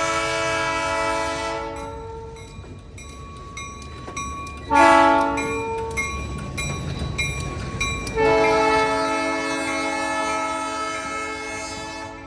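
Locomotive air horn sounding: a long blast ends about two seconds in, a short blast comes near five seconds, and a long blast starts a little after eight seconds, the pattern of a grade-crossing signal. Wheels click over rail joints under a low rumble between the blasts.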